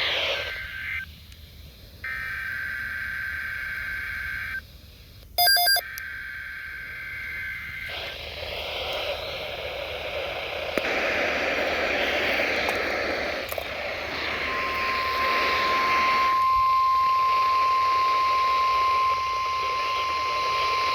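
NOAA Weather Radio alert for a tornado watch coming over a radio receiver: about two seconds in, a couple of seconds of buzzy data tones (the SAME alert header), then a short beep and a stretch of hissing static. About two-thirds of the way through, a single steady high tone begins and holds: the 1050 Hz weather radio warning alarm tone that comes before the spoken watch.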